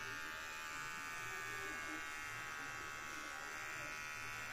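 Steady electrical buzz with many overtones, holding an even pitch and level.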